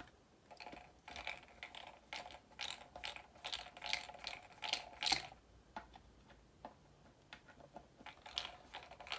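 Screwdriver working a protruding screw on the back of a Stratocaster-style guitar body: a dense run of quick clicks for about five seconds, then a few scattered clicks and another short cluster near the end.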